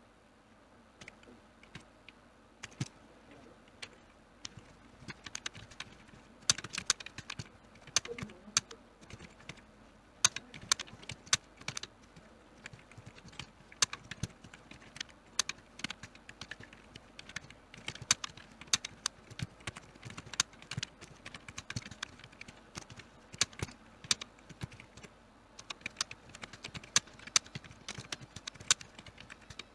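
Typing on a computer keyboard: irregular keystroke clicks, a few scattered ones at first, then quick continuous typing from about six seconds in.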